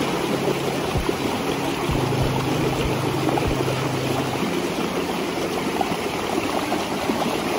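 Water rushing steadily down a shallow, rock-lined waterpark lazy-river channel, an even continuous rush.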